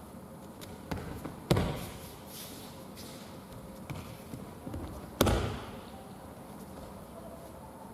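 Thuds of aikido breakfalls, bodies and slapping arms striking tatami mats: two loud impacts about a second and a half and five seconds in, with a few lighter knocks between and a short echo after the loudest.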